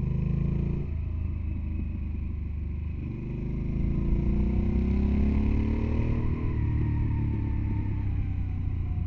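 Motorcycle engine running under way: the engine note dips about a second in, then climbs steadily in pitch as it revs up, drops back around six seconds in and holds steady after.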